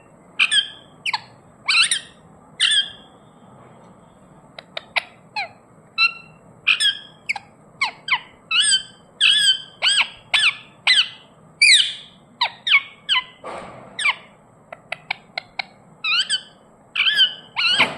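Indian ringneck parrot giving a long string of short, sharp chirps and squawks in quick runs, with a brief lull about three seconds in. The owner says the bird is sleepy yet still chattering.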